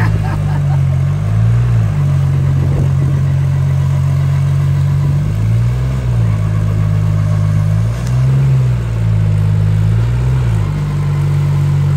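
Tractor's diesel engine running under load in deep mud, its revs dipping and rising again several times.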